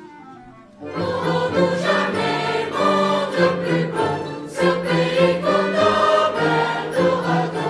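Mixed choir singing with an orchestra in a neoclassical cantata. A soft string passage fades out, then the full choir and orchestra come in loudly about a second in.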